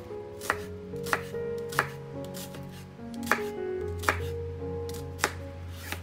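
Kitchen knife cutting through an onion onto a plastic cutting board as the onion is minced: about six sharp knocks, spaced unevenly.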